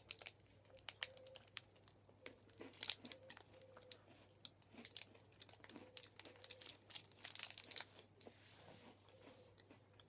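Faint eating sounds: a plastic candy-bar wrapper crinkling and rustling against the mouth while a melted Twix Peanut Butter bar is bitten and chewed, a scatter of small sharp clicks and rustles.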